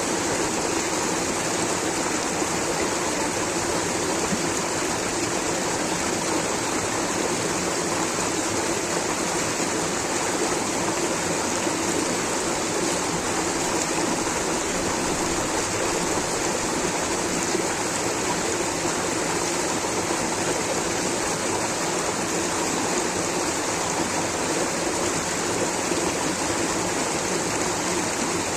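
Water rushing steadily over a small waterfall or stream, an even, unbroken wash of noise.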